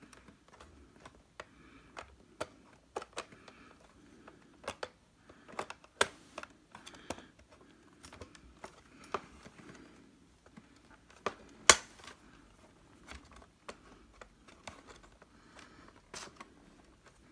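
Irregular plastic clicks and taps as a laptop's bottom access cover is slid and pressed into place on the plastic case, with one sharper snap past the middle.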